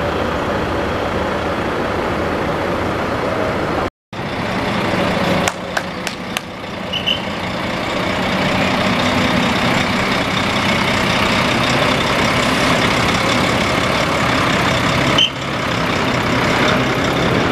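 Heavy flatbed lorry's diesel engine running steadily as the lorry creeps through a gate, with a couple of short high squeaks, likely from its brakes.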